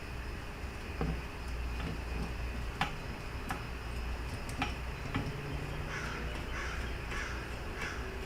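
A few light metal clicks and taps from small parts and screws being handled, then a crow cawing about five times in quick succession near the end.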